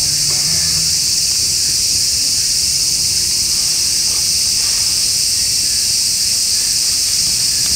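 A steady, high-pitched chorus of summer insects, running unchanged without a break.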